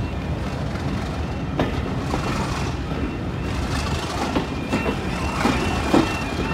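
Train running along the line, heard from a carriage window: a steady low rumble with the wheels clicking over rail joints. About five seconds in, a level crossing's warning alarm starts, a high tone switching back and forth between two pitches.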